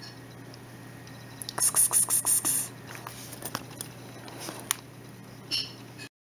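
Thai (Siamese-type) cat rubbing and scratching her head against a fabric-covered seat close to the microphone: a run of quick scratchy rustles about two seconds in, then fainter scattered ones. The sound cuts off suddenly near the end.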